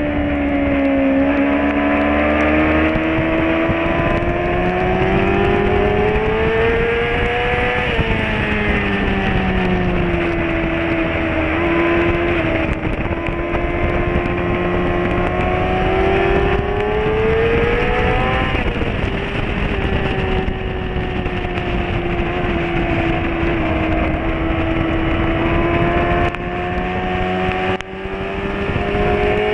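Sport motorcycle engine at high revs, heard from on board the bike. Its pitch climbs slowly for several seconds, falls away and climbs again, about three times over, over a steady rush of noise.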